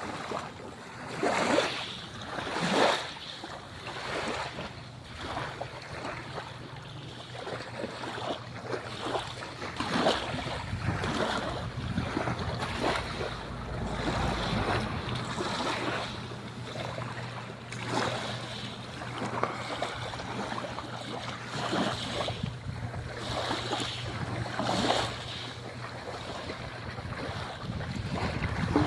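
Sea waves splashing and washing in irregular surges, with several louder splashes, over a steady low hum.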